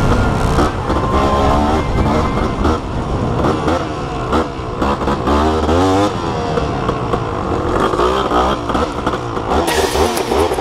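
Motorcycle engine running under way, its pitch rising and falling several times as the rider accelerates and changes gear.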